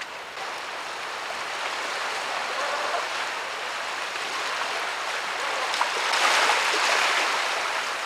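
Ocean surf rushing and breaking against rocks as a steady wash, swelling louder about six seconds in.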